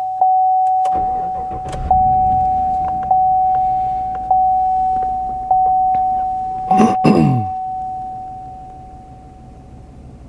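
A 2014 GMC Sierra's 5.3 L V8 starts about a second in and runs at idle under the truck's warning chime, a steady ding repeating about every 1.2 seconds that fades out near the end. This is the first start after a retune that disables Displacement on Demand. A short, loud sound with falling pitch comes about seven seconds in.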